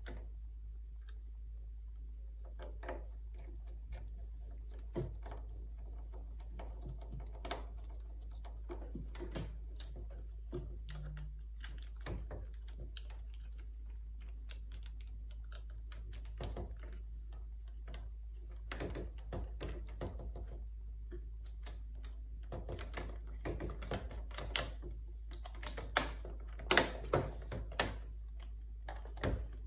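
Scattered small clicks and taps of a screwdriver and plastic laptop parts being worked at the hinge corner, getting busier and louder near the end, over a steady low hum.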